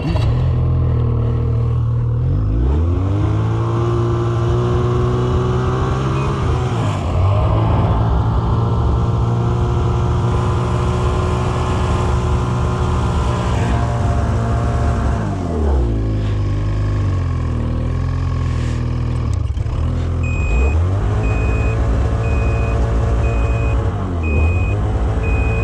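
Snowmobile engine running under way, its pitch dropping and climbing again several times as the throttle is eased off and opened up. In the last few seconds a repeating beep sounds over the engine.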